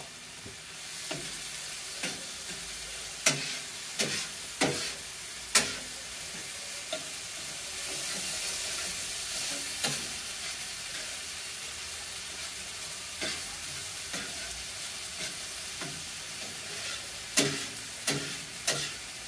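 Seasoned ground chicken breast sizzling steadily on a hot round flat-top griddle, the sizzle swelling for a couple of seconds in the middle. A metal spatula clicks and scrapes against the griddle plate about once a second in the first several seconds and a few more times near the end as the meat is stirred.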